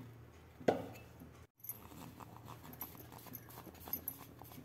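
Faint, irregular light taps and rustling as powdered sugar is poured into a metal bowl of grated coconut and roasted semolina, with a moment of dead silence about one and a half seconds in.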